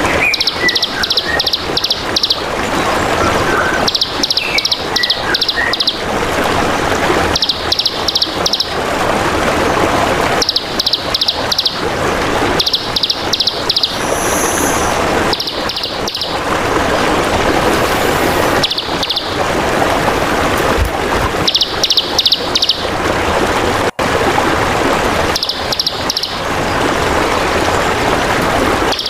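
A recording of a songbird calling in short bursts of rapid, high chirping notes, repeating every few seconds. A continuous trickle of running water plays under it.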